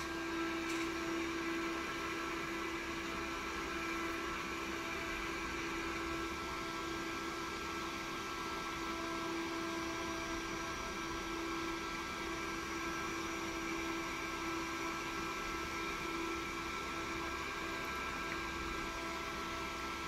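Server cooling fan running steadily: an even rush of air with a constant hum and a few fainter high whines over it.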